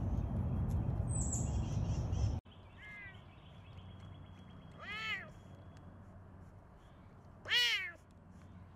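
Serval calling: three short, high, meow-like calls that rise and fall in pitch. The first is faint, the second comes about five seconds in, and the loudest comes near the end. Before them, a steady rushing background noise cuts off suddenly about two and a half seconds in.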